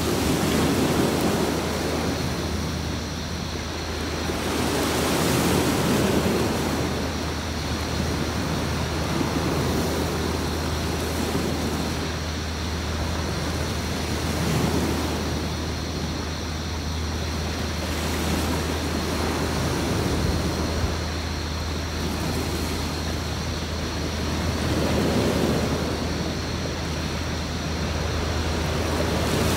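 Sea waves washing onto a beach, swelling and falling away every few seconds, over a steady low hum.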